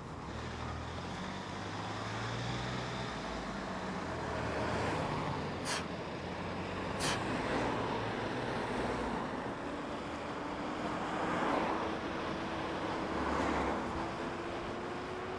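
Riding noise from an Inmotion V11 electric unicycle: steady wind and tyre rumble, with a faint motor whine slowly rising in pitch over the second half. Two sharp clicks come about six and seven seconds in.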